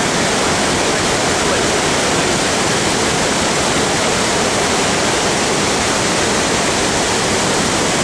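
Large waterfall in full monsoon flow, the falling water making a loud, steady rushing noise.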